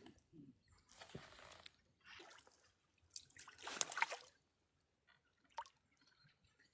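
Water splashing and sloshing in short irregular bursts, loudest about four seconds in.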